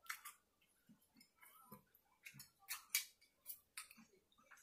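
Faint, scattered clicks and crunches of someone eating salad: chewing, and a utensil scraping and tapping in a small bowl of salad.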